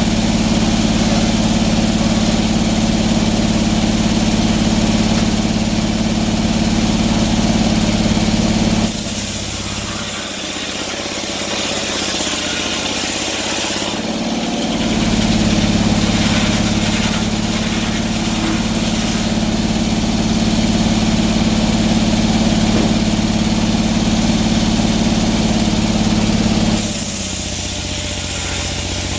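An engine running steadily with a strong low hum. The hum drops away about nine seconds in, comes back about six seconds later, and drops away again near the end.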